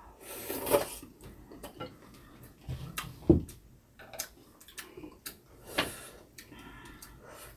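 Eating at the table: noodles slurped from a bowl of beef rib soup, with chopsticks and a spoon clicking against ceramic bowls. One louder knock comes about three seconds in.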